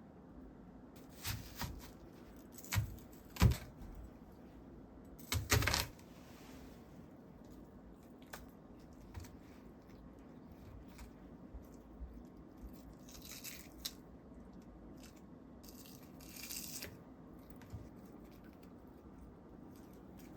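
Kitchen preparation handling sounds: a run of sharp clinks and knocks of utensils and dishes in the first few seconds, then lighter taps and two brief rustles.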